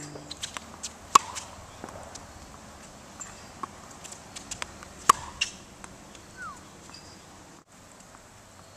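Tennis ball struck by a racket and bouncing on a hard court. Two sharp hits stand out, about a second in and about five seconds in, with softer knocks of the ball between them.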